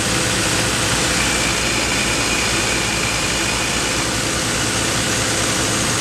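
HXING pile-driving drill rig running steadily while drilling into rock with its vacuum dust extractor attached: a loud, continuous mechanical noise with a rapid low pulsing underneath.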